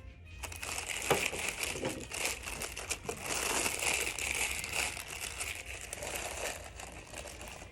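Crinkling and rustling of packaging being handled, with small clicks and knocks.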